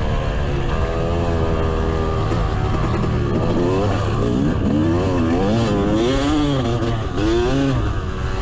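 Yamaha YZ250's 250 cc two-stroke single-cylinder engine ridden on a motocross track, heard from an onboard camera. It holds fairly steady revs at first, then revs up and down in quick swells several times through the second half as the throttle is worked.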